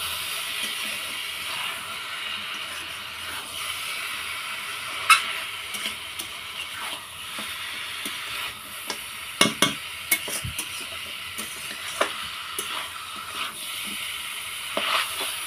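Chicken pieces sizzling as they fry in oil and spice paste in a pot, while a spoon stirs them, scraping and knocking against the pot now and then, the sharpest knocks about five seconds in and around nine to ten seconds in.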